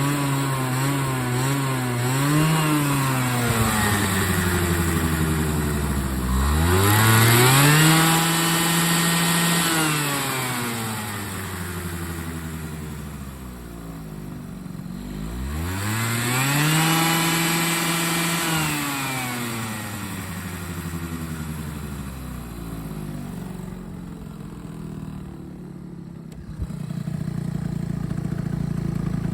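Engine idling unevenly, its speed wavering, then revved twice, each rev climbing quickly, held for a few seconds and dropping back to idle; it gets louder again near the end. The engine is one said to make an abnormal noise.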